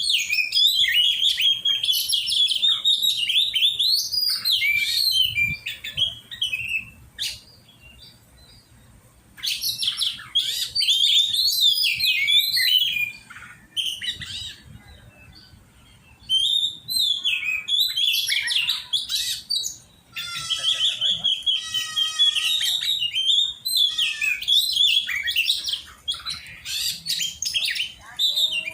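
Oriental magpie-robin (kacer) singing in loud bouts of varied whistles and chirps, with short pauses between bouts and a fast rattling trill about two-thirds of the way through.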